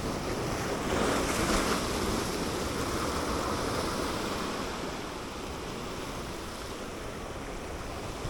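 Sea surf washing against shore rocks, a wave surging about a second in and easing off over the next few seconds, with wind buffeting the microphone.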